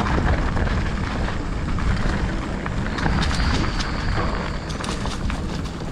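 Mountain bike riding downhill, heard from a rider-mounted camera: wind buffeting the microphone, tyres rolling over dirt, and the bike's chain and frame clattering in many short clicks. A brief high whine comes in about three seconds in.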